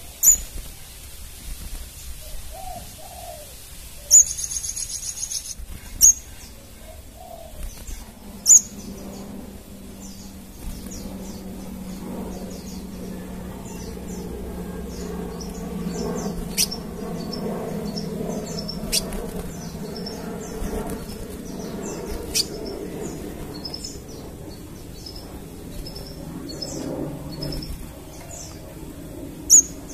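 Crimson sunbird calling: loud, sharp, very high chips, a short buzzy trill about four seconds in, then a long run of rapid, thin, high twittering notes. A low hum sits beneath the middle part.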